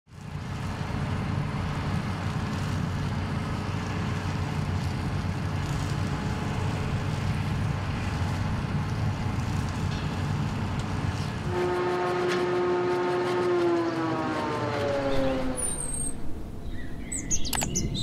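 Self-propelled four-row potato harvester and tractor running steadily at work, a deep engine drone. About twelve seconds in, a higher engine note slides down in pitch over a few seconds. The machinery then drops away and birds chirp near the end.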